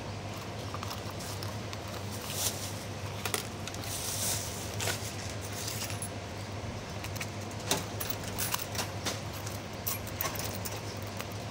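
A thin plastic carrier bag rustling and crinkling as it is handled, with small clicks and taps, over a steady low hum.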